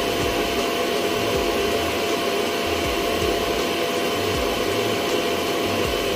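Viomi S9 UV robot vacuum running: a steady loud whirring with a thin continuous whine over it.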